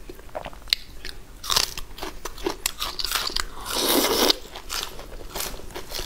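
Close-up eating sounds: biting and chewing with sharp, sticky clicks from soft braised pork trotter. A loud crisp crunch comes about four seconds in, as a raw green vegetable is bitten.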